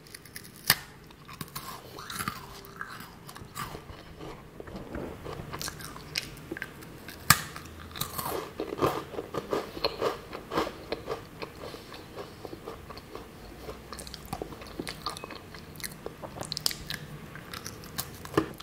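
A person bites into a crisp round matcha biscuit close to the microphone. There are two sharp bite snaps, near the start and about seven seconds in, each followed by crunching and chewing.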